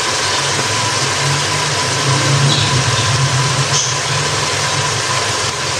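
Onion-tomato masala frying in a pan, an even sizzling hiss over a steady low motor-like hum.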